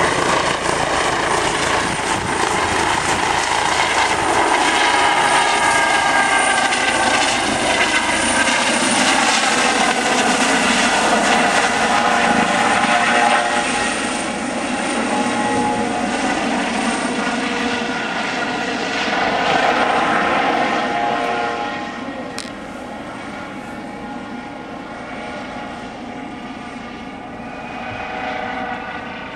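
Eurocopter EC135 T2 helicopter flying low overhead, its rotor and turbine noise steady and loud as it passes close. Its sound falls away about halfway through, and again near the end, as it moves off.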